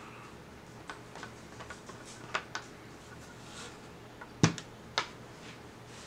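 A few light clicks and knocks of things being handled on a table, the loudest about four and a half seconds in, over a faint steady low hum.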